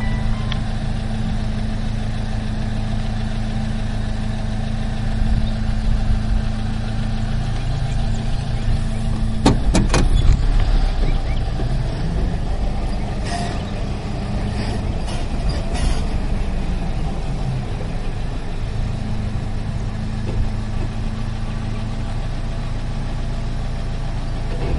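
Car engine running steadily with a low hum, heard from inside the car. A few sharp clicks come about ten seconds in and again a few seconds later.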